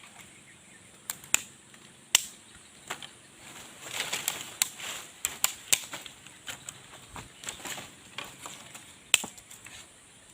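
Irregular sharp snaps and knocks, a dozen or more, some coming in quick clusters, over a steady high drone of forest insects.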